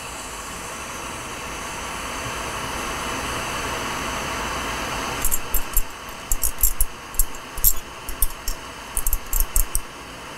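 Bench torch flame hissing steadily while the end of a glass rod is heated in it. About halfway through the hiss drops, and a string of sharp, irregular clicks and taps follows.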